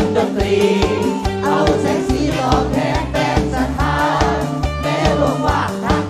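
Live Thai Isan band music: a woman singing into a microphone over the band, with a steady, regular beat.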